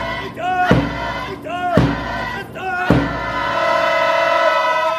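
Cheer-squad performance sound: a heavy strike about once a second, each followed by a loud pitched chord or shouted call. From about three seconds in, one long note is held.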